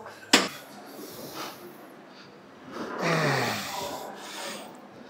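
A man breathing hard and groaning after a heavy set of leg exercises. There is a short sharp noise just after the start, and about three seconds in a long groan that falls in pitch.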